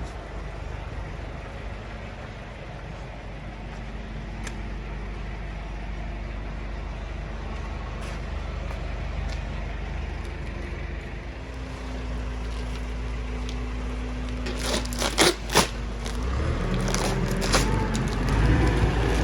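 Yamaha WaveRunner VX Cruiser HO jet ski engine running steadily at a low idle. A few sharp clicks come about three quarters of the way in, and the engine gets louder near the end.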